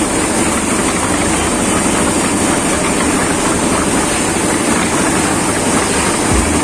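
Drum-type concrete mixer running steadily, its drum turning on a ring-gear drive.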